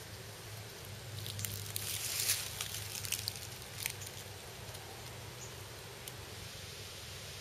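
Rustling and light scraping as a hand packs a wad of flash cotton (nitrocellulose) into the muzzle of a PVC-pipe replica rocket launcher, a flurry of small crackles for about three seconds that dies away after about four seconds in.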